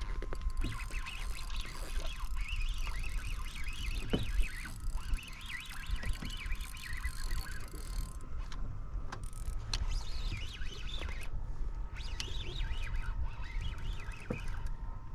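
Birds chirping and warbling busily in quick, varied calls, over a low wind rumble and a faint steady high whine.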